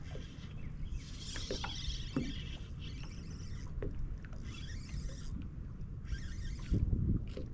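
Water slapping and lapping against a bass boat's hull in patches every second or so, over a steady low wind rumble on the microphone. There are a few light knocks and a louder low thump near the end.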